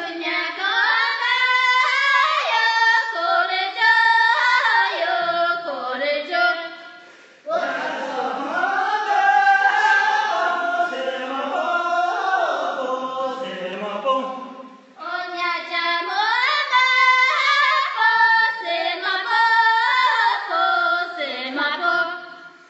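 Voices singing a song in three long phrases, with short breaks about seven and fifteen seconds in.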